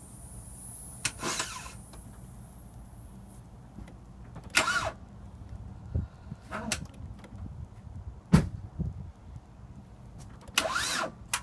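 2005 Kia Sedona failing to start: a few sharp clicks as the key is turned, the loudest about eight seconds in, over a low steady hum, with no cranking heard. The starter is not turning the engine.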